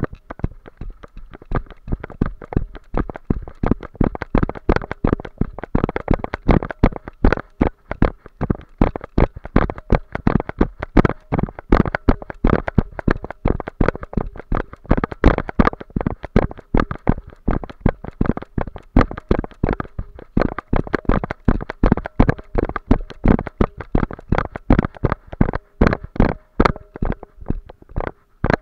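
Rapid, irregular knocks and crunches, several a second: footsteps and the jolting of a body-worn camera as a person walks a dry, leaf-strewn trail.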